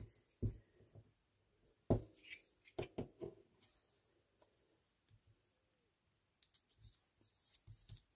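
Faint handling sounds of a glued paper cut-out being pressed onto a card tag on a cutting mat: a few soft taps and knocks in the first three seconds, then fainter taps near the end.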